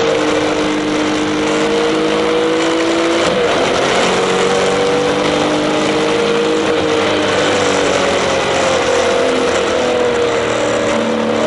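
Turbocharged Porsche 996 flat-six heard from inside the cabin, running hard under load with its pitch climbing slowly as the car accelerates. There is a gear change about three seconds in.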